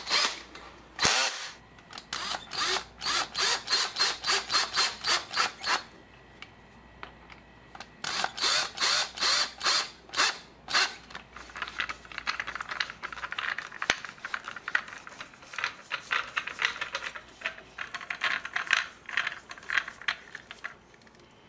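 Screws being driven through a 2x4 into plastic wall anchors, heard as runs of sharp ratcheting clicks about three or four a second. There is a pause of about two seconds after the first run, and the clicking is quicker and fainter through the second half.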